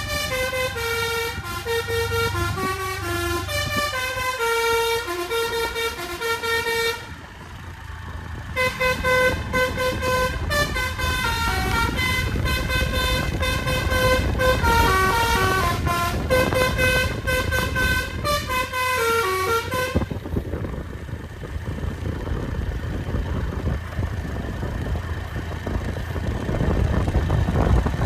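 A 'telolet basuri V3' multi-tone bus horn plays a melody of short stepped notes. It breaks off briefly about seven seconds in, then plays on until about twenty seconds in. After that only the bus's engine and road rumble remain, growing louder near the end.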